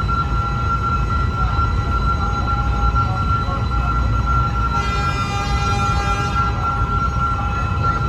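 Passenger train rolling past on the rails: a steady, loud low rumble of the coaches, with a steady high-pitched ringing tone over it.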